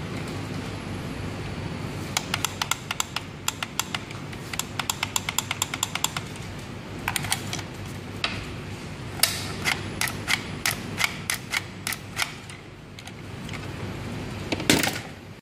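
Sharp plastic clicks from a handheld JSK-06 security-tag detacher gun being squeezed and worked. The clicks come in quick runs of three or four a second, with a louder cluster near the end, over a steady low rumble.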